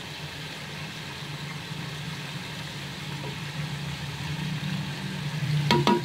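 Chicken and ground spices frying in a steel pot: a faint sizzle over a steady low hum. Near the end come two quick knocks with a short metallic ring, the wooden spoon striking the pot.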